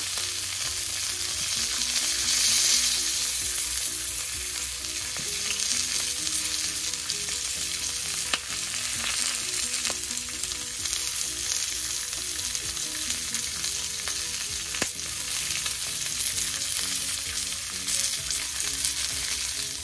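T-bone steaks and bell peppers sizzling in butter in a cast-iron grill pan, a steady frying hiss, with a few light clicks of metal tongs against the pan as the peppers are turned.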